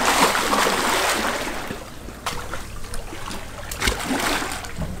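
Water splashing and sloshing as tarpon thrash at the surface after chunks of tuna, loudest in the first second and a half, with a couple of sharp knocks later.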